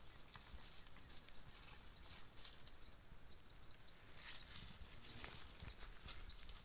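Steady high-pitched insect chorus, with faint short chirps repeating in the second half.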